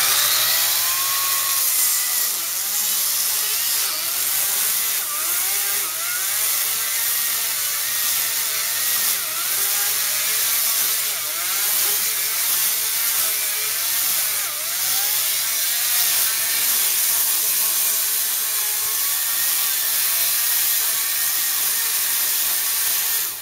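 Ryobi 40-volt cordless electric chainsaw with a 14-inch bar cutting through dead peach wood: a continuous whine of motor and chain whose pitch sags and climbs again as the chain bites into the log, cutting off abruptly near the end.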